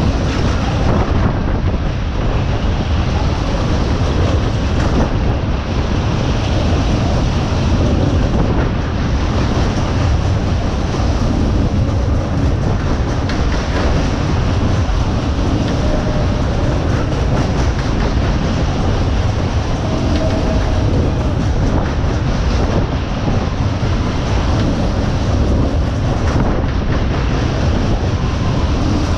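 Loud, steady rumble and rattle of a fast-running fairground ride's cars going round their track, heard from on board.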